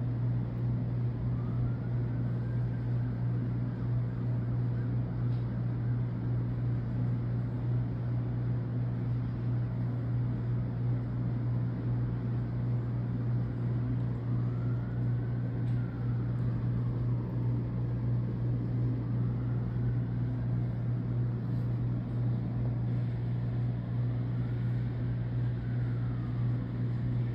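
Steady low machine hum, like an engine or motor running constantly, with faint rising-and-falling wails heard about four times over it.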